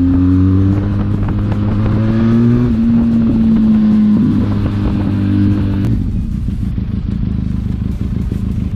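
Benelli TRK 502X's parallel-twin engine running through a Roadsitalia titanium exhaust with the dB killer removed. It is held at raised revs that waver a little, then drops back to a lower idle about six seconds in.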